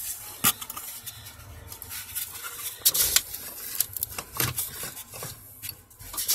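Scattered clicks, taps and rubbing of steering column parts being handled and fitted by hand, with several sharper knocks spread through.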